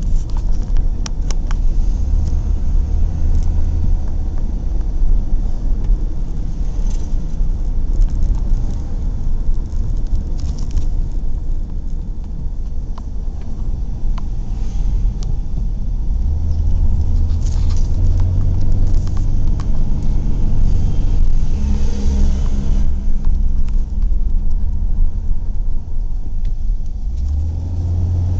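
Low, steady road and engine rumble of a moving car heard from inside its cabin, with a few brief rattles.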